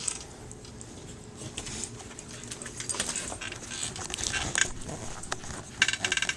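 A dog scuffling about while playing with a soccer ball, with scattered light clicks and jingles and a quick rattle of clicks near the end.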